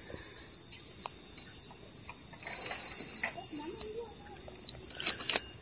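Insects droning steadily in two high, unbroken tones, with a few sharp clicks near the end.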